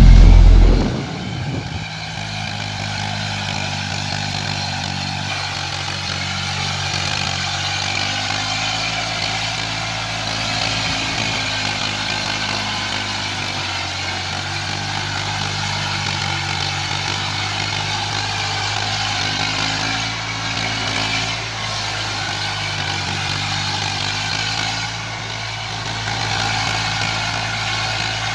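Eicher 480 tractor's diesel engine running steadily under load, pulling a rotary tiller through wet mud, with a higher whine that wavers slightly in pitch riding over it. The first second holds a much louder low rumble that cuts off abruptly.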